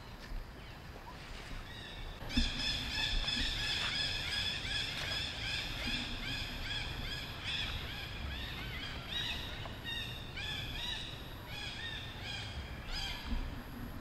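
Macaque monkeys giving a long run of high, repeated squealing calls that overlap one another; they start about two seconds in and keep on until near the end.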